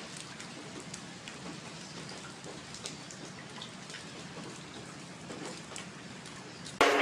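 Light rain falling steadily, with faint scattered drips. Loud music cuts in suddenly near the end.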